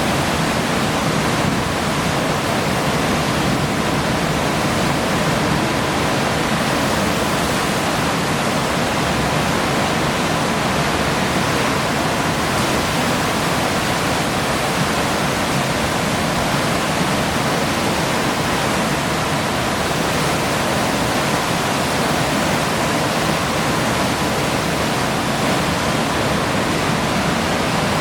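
Hurricane wind from the outer eyewall of Hurricane Irma, a Category 4 storm, making a loud, unbroken rushing roar with no lulls.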